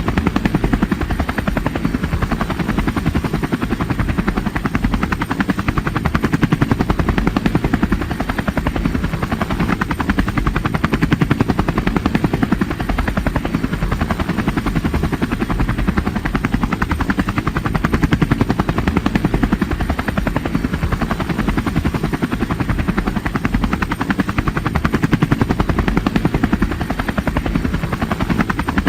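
Helicopter rotor sound effect: blades chopping rapidly and steadily without a break, dubbed in place of the drone's own sound.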